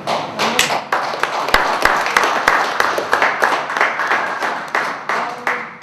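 Audience applauding: dense hand claps that fade away near the end.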